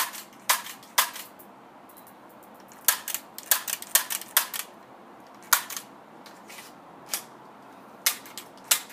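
MP40-style BB gun firing a series of sharp snapping shots at irregular spacing: three in the first second, a quick run of about eight between three and five seconds in, then single shots every second or so.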